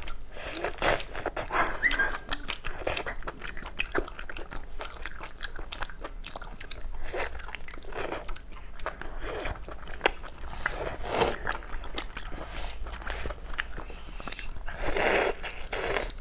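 Close-up eating sounds: biting and tearing braised meat off the bone and chewing it, a steady run of irregular clicks and smacks, with a louder rush of noise about fifteen seconds in.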